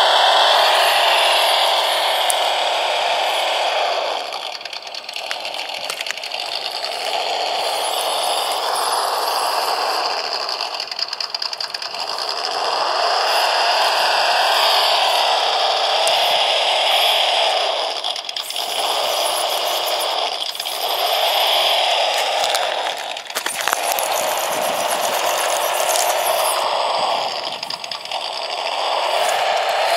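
Mini RC rock crawler's built-in engine sound module playing a simulated truck engine through its small speaker, mixed with the whir of its electric drivetrain. The engine note rises and falls with the throttle as the truck crawls, easing off briefly about six times.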